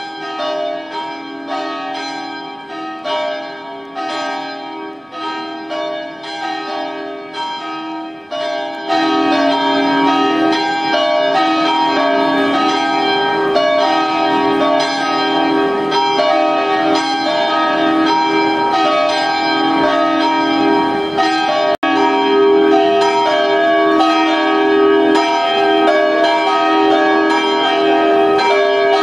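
Church bells ringing in a steady peal of repeated strokes with long-ringing tones, growing suddenly louder and fuller about nine seconds in.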